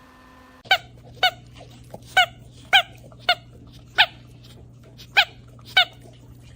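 A dog barking in short, high-pitched yips, about eight in a row at roughly two a second.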